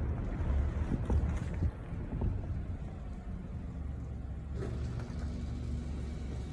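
Low, steady rumble of a distant aircraft overhead. A faint steady hum joins it about four and a half seconds in.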